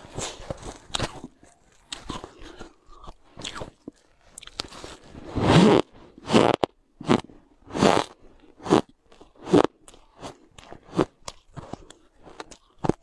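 A person biting and chewing soft, snowy ice close to the mouth: crunches come irregularly at first, then one longer, louder crunch about halfway through, followed by a steady chewing rhythm of a little over one crunch a second.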